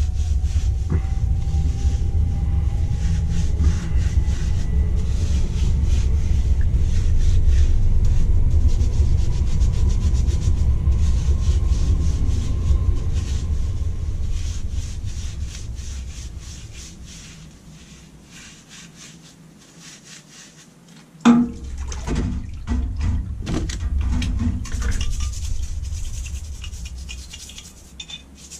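Small brush scrubbing a Holley carburettor throttle base plate in quick rubbing strokes, over a low machine rumble that fades out a little past halfway. A single sharp knock comes about three-quarters of the way through, and the scrubbing carries on after it.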